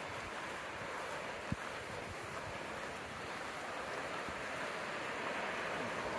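River water rushing through a rocky ravine, a steady noise. A single short knock about a second and a half in.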